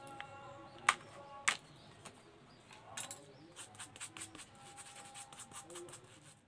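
Hand work on a foam sandal sole at a bench: two sharp clicks about a second in, then a run of small ticks and scratches as glue is spread over the sole. Faint steady tones sit underneath.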